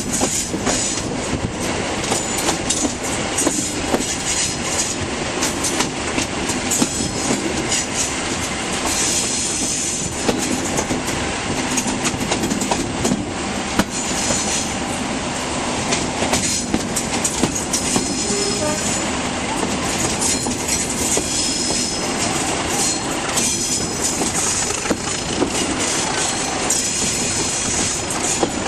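Class 37 diesel locomotives, English Electric V12 engines, working a train, heard from an open window close behind them, with the wheels clattering over rail joints. High wheel-flange squeal comes and goes on the curve.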